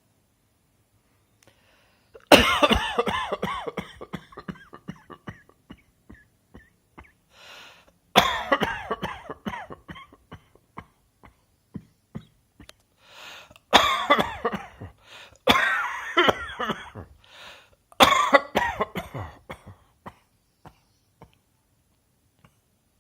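A person coughing in repeated fits: five loud bouts, each starting hard and trailing off into a run of smaller coughs, with fainter single coughs in between.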